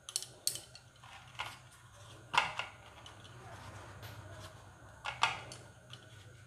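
Hands rubbing salt and turmeric onto hollowed pointed gourds and handling them on a plate: soft rubbing with a few light knocks and clicks, the loudest about two and a half and five seconds in, over a low steady hum.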